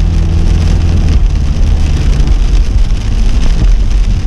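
Heavy rain pelting a moving car, with the car's engine and wet road noise underneath; a steady engine hum fades out about two seconds in.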